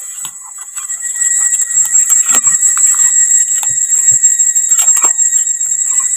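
Steady, loud insect chorus, one high continuous shrill with a fainter lower tone beneath it, over close crackling rustles and snaps of dry leaves and twigs being handled on the forest floor.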